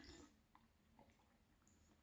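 Near silence: room tone, with a faint brief rustle at the start and two faint ticks about half a second and a second in.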